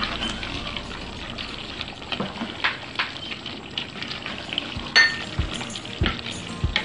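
Wooden spatula stirring a thick chicken curry in a stainless steel pot as it sizzles on the heat, mixing in the garam masala. Irregular knocks and scrapes of the spatula against the pot come through the sizzle, the loudest about five seconds in.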